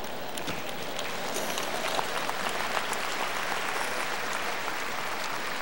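A large congregation applauding, the clapping swelling about a second in and then holding steady.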